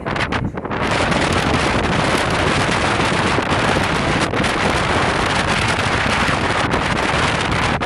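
Strong wind blowing across the microphone: a loud, steady rush of noise, choppier and gusting for the first second.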